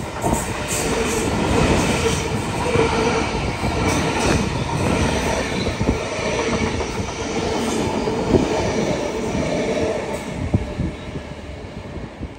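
Double-deck V set electric train running through the station past the platform: a steady rumble of wheels on rail with clicks over the rail joints and a steady whining tone, fading as the train moves away near the end.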